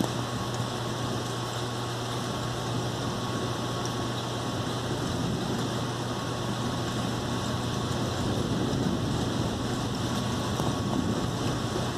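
Steady rain during a thunderstorm, an even hiss with a constant low hum underneath.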